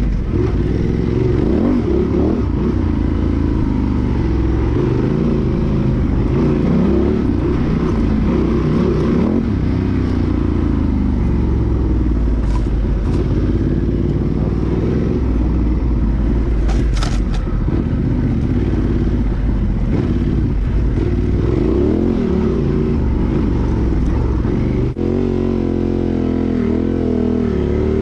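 Honda Transalp XL750's parallel-twin engine, breathing through a Mivv Dakar exhaust with an Arrow decat pipe, revving up and down under changing throttle as the bike is ridden off-road. A few sharp clicks sound around the middle, and the engine note holds steadier near the end.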